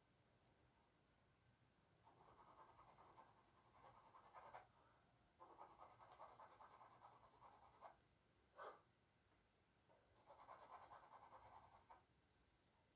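Charcoal scratching across canvas in three faint spells of drawing strokes, with one brief sharper scrape between the second and third.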